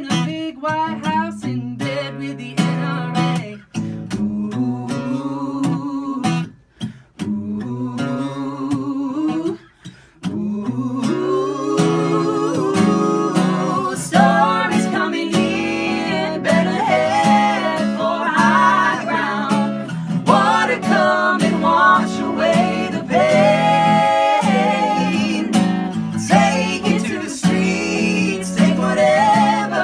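Live acoustic song: an acoustic guitar is strummed under male and female voices singing together. The music stops briefly twice about a third of the way in, then comes back fuller and louder.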